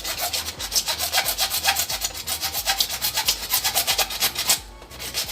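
Hand saw cutting through PVC pipe with quick back-and-forth strokes, stopping near the end.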